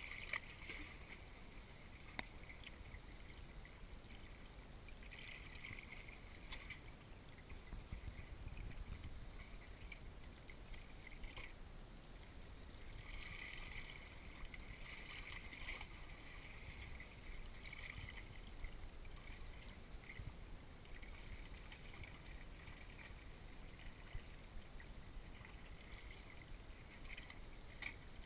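Faint ambience of calm sea water lapping against shoreline rocks, coming and going in soft washes of hiss every few seconds over a low rumble, with a few light clicks.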